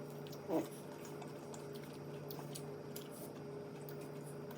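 Faint wet clicks and ticks of someone chewing chicken wings, over a steady low hum. A brief, louder pitched sound comes about half a second in.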